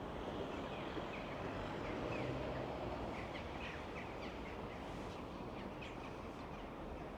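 Small birds chirping in quick short calls, many in a row, over a steady outdoor background rumble.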